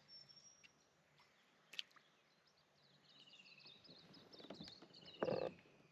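Small birds chirping and trilling in the background, with many short high chirps and two falling trills. A sharp click comes about two seconds in, and a brief louder noise about five seconds in.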